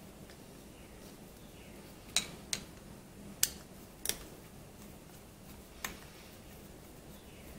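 A screwdriver clicking against the metal screws and cover of a small engine carburetor as the cover screws are backed out: five short, sharp metallic clicks spread over a few seconds, with faint room tone between them.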